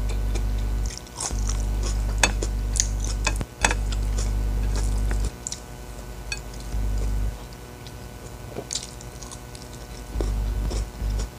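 Close-miked eating by hand: wet mouth smacks, slurps and chewing clicks as boiled spinach and rice are eaten. Under them a low hum cuts in and out abruptly several times, louder than the eating.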